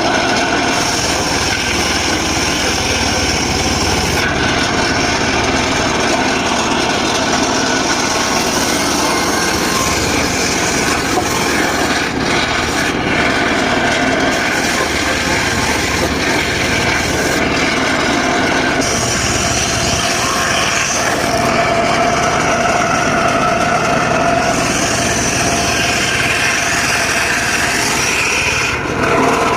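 Large circular saw ripping dry teak wood, running continuously under load with a steady whine whose pitch shifts as the cut goes on.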